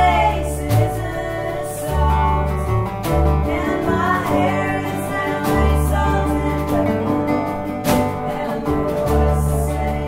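Music: a song with singing over guitar and bass, with a steady beat.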